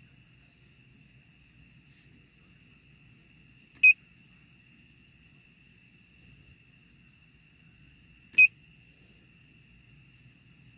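Two short electronic beeps from a handheld OBD scan tool, about four and a half seconds apart, as the erase-codes command goes through and the next prompt comes up. Faint, steady chirring of insects, crickets by the sound of it, underneath.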